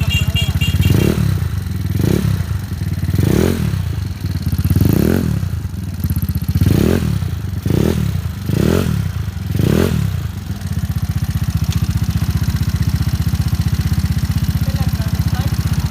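Yamaha Mio Sporty scooter's small four-stroke single-cylinder engine, breathing through an MTRT Evo V3 aftermarket exhaust, idling and blipped about eight times in quick succession, each rev rising and falling, then settling back to a steady idle.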